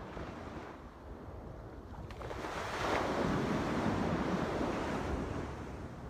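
Ocean surf: a wave breaks and washes up the beach, swelling a little before halfway and easing off near the end, over a low wind rumble on the microphone.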